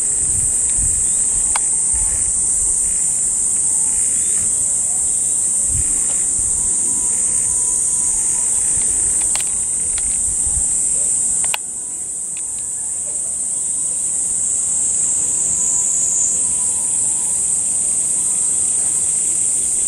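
A loud, steady, high-pitched chorus of insects, with a few faint clicks; about halfway through, the low rumble beneath it drops away suddenly.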